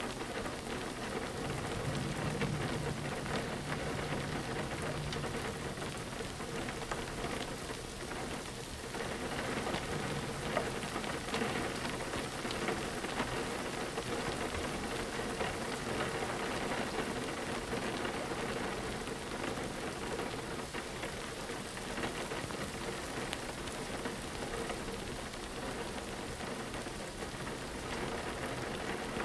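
Rain falling steadily against a window: an even hiss dotted with small drop ticks.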